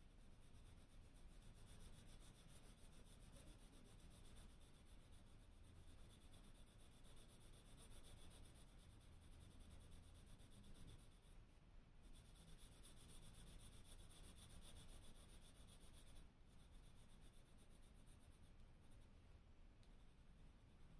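HB graphite pencil shading on smooth Bristol paper: a faint, rapid scratching of many short strokes, pausing briefly about twelve seconds in and again about sixteen seconds in.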